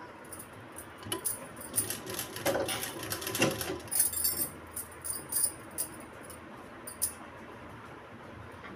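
Glass bangles on the sewing hand clinking and jingling in irregular clicks while a sewing machine stitches gathers into thin net fabric, densest in the first half and thinning out after about five seconds.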